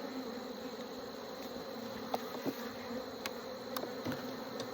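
Honey bees buzzing around an open hive in a steady, even drone, with a few faint clicks about halfway through.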